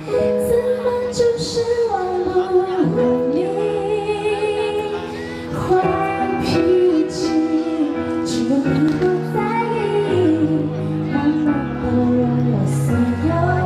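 A woman singing a pop song live, held melodic notes over instrumental backing with regular cymbal strokes.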